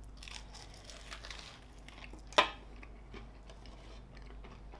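Mouth biting into the dry, flaky pastry of a chicken and leek pie: faint crackles of crust, with one sharp crunch about halfway through.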